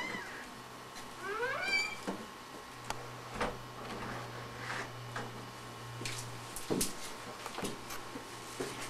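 A cat meows once, a rising call about a second and a half in. Scattered knocks and footsteps on wooden stairs follow over a low steady hum.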